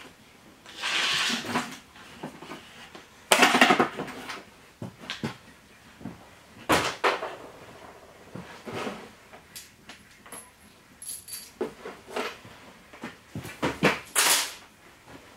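Objects being handled and set down on a workbench: irregular knocks, clatters and scrapes, the loudest a short scraping clatter about three and a half seconds in.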